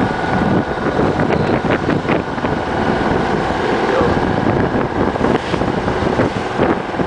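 Wind buffeting the microphone over the rush of water along a sailboat's hull as it moves through choppy sea.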